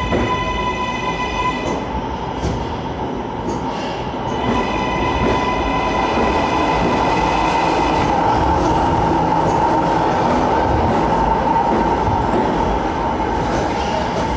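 R143 subway train running along the station platform, a loud steady rumble of wheels and car bodies. A high whine of several stacked tones sounds briefly at the start and again for a few seconds from about four seconds in, when the train grows louder.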